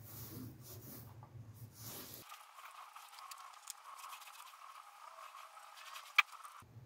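Foam gloss roller rolling wet two-pack paint across a car bonnet: a faint sticky crackle and hiss, with one sharp click about six seconds in.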